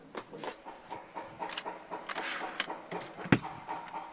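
A window being slid shut: scattered light clicks and knocks with a brief sliding hiss about halfway through.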